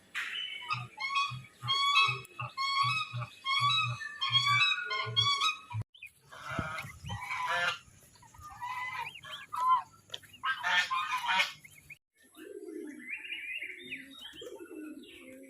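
Birds calling in three short clips that change abruptly about six and twelve seconds in. The first clip is a rapid, even series of calls, about two a second.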